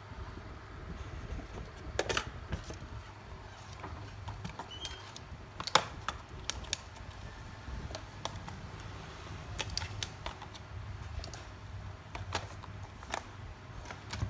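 Irregular light clicks and taps of small tools and phone parts being handled on a repair bench, with one sharper click about six seconds in, over a low steady hum.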